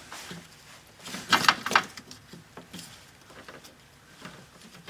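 Small plastic clicks and rattles from a multi-pin door wiring connector being pried open with a pick. A quick cluster of about four sharp clicks comes about a second and a half in, followed by fainter scattered ticks.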